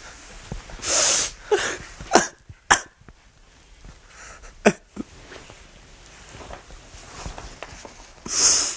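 Hard, breathy sniffs through the nose from a man who has been crying, two loud ones about a second in and near the end with shorter ones between. A few sharp clicks come in the first half.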